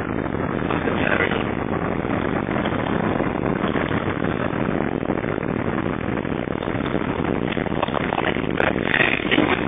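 Steady rushing wind and road noise inside a moving car.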